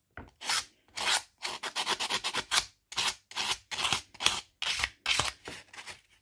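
Wet-and-dry abrasive paper rubbed back and forth over the steel teeth of an English pricking iron, a quick run of scratchy strokes about three a second, polishing and cleaning up the teeth.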